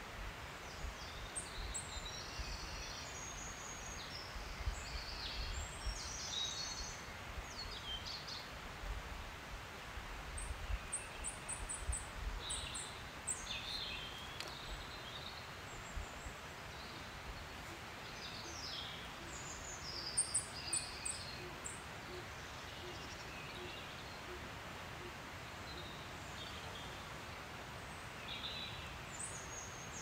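Outdoor ambience of small songbirds chirping and trilling, with short scattered calls coming and going and a busier stretch around a third of the way in. A low wind rumble on the microphone fades out about halfway through.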